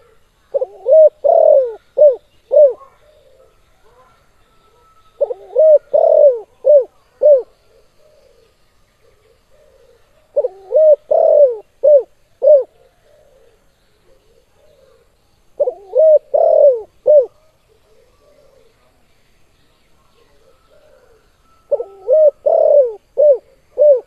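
Spotted dove (tekukur) cooing its song: five phrases about five seconds apart, each a quick run of four or five coos.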